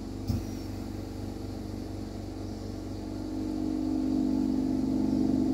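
Steady mechanical hum of workshop equipment, made of several low tones, growing louder over the last two seconds, with one short click just after the start.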